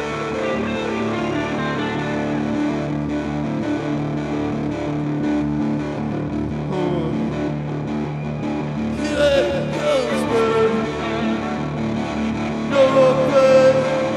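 Live rock band playing an instrumental passage, a distorted electric guitar holding sustained notes. Louder, brighter swells come in about nine and again about thirteen seconds in.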